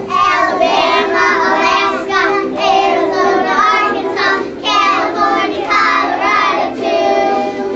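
A group of kindergarten children singing together in unison, a song that names the fifty states.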